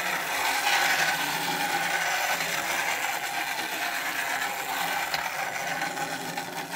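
Thomas the Tank Engine pull-back toy train running on its own around a plastic figure-eight track: its spring-driven pull-back motor whirring steadily as the little engine travels in the track grooves.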